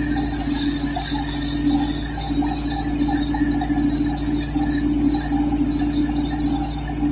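Harvesting machine running steadily: a constant hum under a strong high hiss that swells just after the start and then holds.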